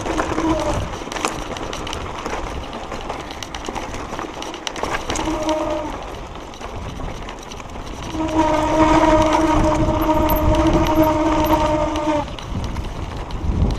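Mountain bike disc brakes howling under hard braking on a rough, rocky descent: a steady horn-like tone, briefly about five seconds in and again for about four seconds from eight seconds in, over a constant rattle of tyres on gravel and wind.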